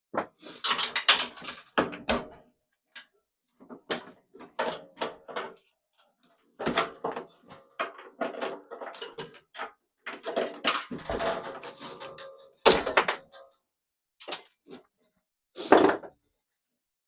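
Sheet-metal casing and parts of a microwave being handled and pulled apart by hand: irregular rattles, scrapes and clanks of thin metal in bursts with short pauses, some ringing briefly.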